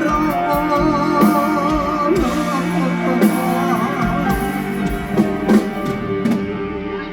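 Live mor lam band music: electric guitar and drum kit under a long wavering melody line, with little singing.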